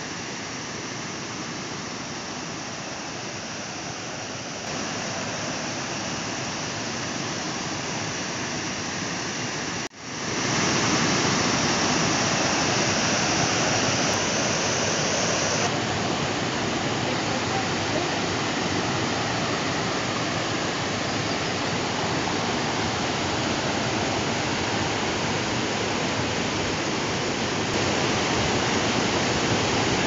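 Steady rush of flowing water, softer in the first third. After a sudden cut about a third of the way in, it comes back louder as white water tumbling over boulders in a creek's rapids and falls.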